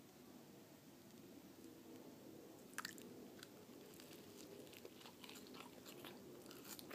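Faint chewing and biting of a toasted sandwich, with a few soft crunches, most of them in the second half.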